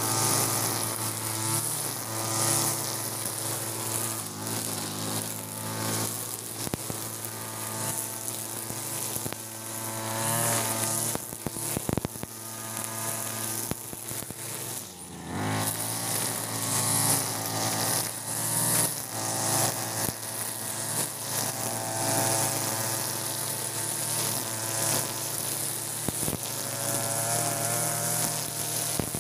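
Backpack two-stroke brush cutter running at high revs, its nylon-line trimmer head whirring through grass. The revs drop briefly about halfway through and pick up again.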